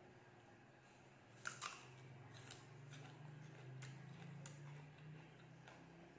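A crisp green Thai jujube dipped in chili salt being bitten, with a sharp double crunch about a second and a half in, then faint, scattered crunchy chewing.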